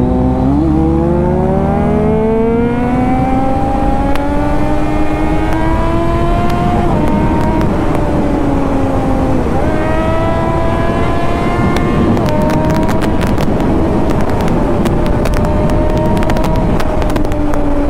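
Triumph Daytona 675's inline-three engine under way, its pitch climbing steadily for several seconds as the bike pulls, dipping about seven seconds in and easing off until about ten seconds, then rising again and holding fairly steady. A rapid patter of faint clicks sits over it in the last several seconds.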